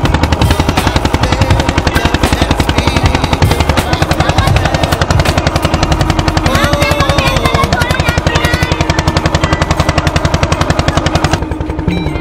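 Engine of a wooden passenger boat running under way, a loud, rapid, even knocking beat; the sound turns duller about a second before the end.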